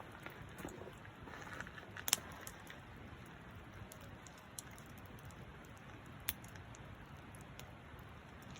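Campfire crackling: a low steady hiss with irregular sharp pops and snaps, the loudest about two seconds in and again just after six seconds.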